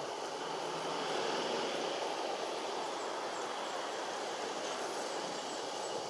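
Steady background noise of distant traffic, an even rumble without clear breaks or single events.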